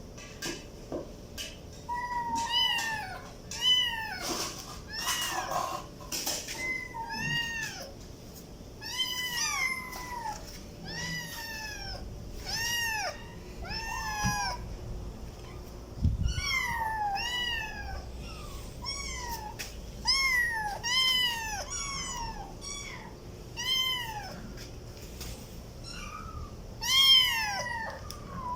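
Kitten meowing over and over in short, high calls that rise and fall, about one or two a second.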